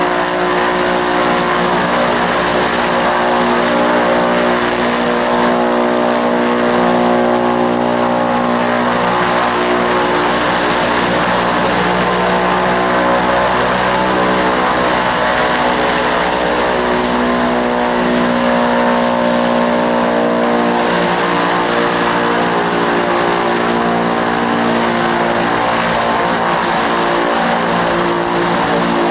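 Turboprop aircraft engines and propellers running in a steady, loud drone, a stack of steady tones whose pitch shifts slightly now and then.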